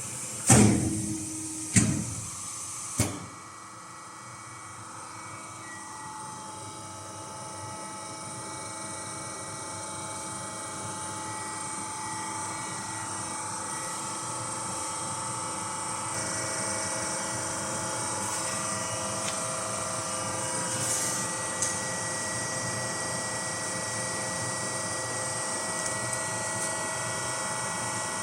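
Industrial machine running: three sharp clanks in the first three seconds, then a steady hum with several held tones that slowly grows louder.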